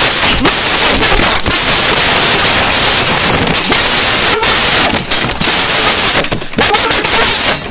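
Loud, distorted rushing and rustling noise from a body-worn camera's microphone, rubbed and buffeted by the wearer's movement while officers storm in and grab a man.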